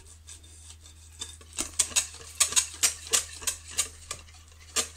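Metal wire whisk beating a batter in a glass bowl. After a quiet start, it clicks and scrapes against the bowl's sides about three times a second from a little over a second in.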